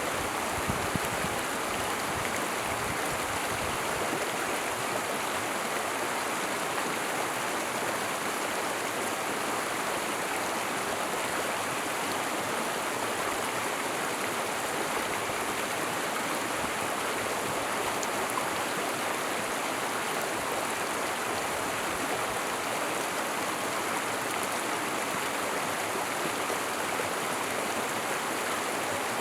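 Small forest stream flowing, a steady, even rush of water that holds at one level throughout.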